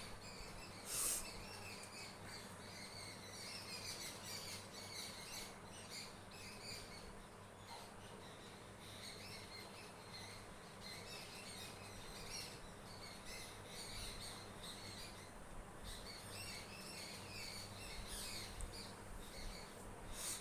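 Small birds chirping on and off in the background over a low steady hum, with a brief hiss about a second in.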